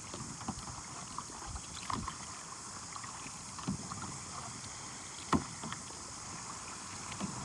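Sea kayak being paddled: paddle blades dipping and splashing at an uneven pace, with one sharper knock about five seconds in.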